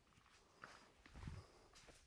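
Near silence with faint handling noise from work on a torn-down engine: a few soft clicks and a low thud about a second in.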